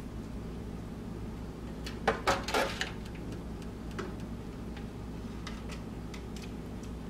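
Cooking utensil clatter: a slotted spoon knocking and scraping in a large aluminium stockpot as boiled corn cobs are lifted out into a foil pan, with a short cluster of clanks about two seconds in and lighter taps after, over a steady low hum.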